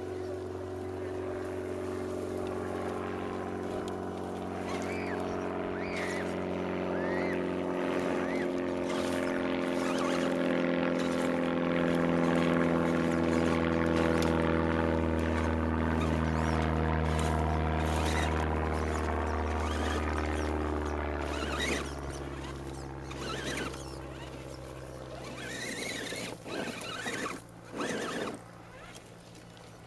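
A steady motor drone whose pitch drifts slowly up and down, loudest around the middle and fading away after about twenty seconds. Near the end come a few short knocks and scrapes as the RC truck's tyres claw at loose sandy dirt.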